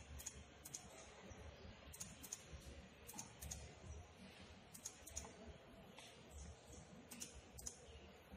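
Faint, irregular clicking of a computer mouse and keyboard, a few clicks a second, over low room noise.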